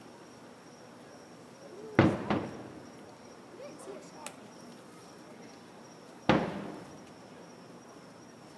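Aerial firework shells bursting at a distance: a boom about two seconds in, a second right after it, and another about six seconds in, each echoing away.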